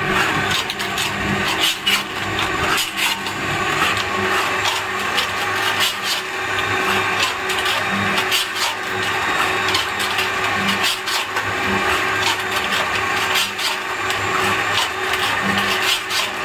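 Electric lime mortar pan mixer running: its roller wheel and scraper blades scraping and grinding through a lime, sand and soil mix in the steel pan. Underneath is a steady hum, with frequent clicks and knocks.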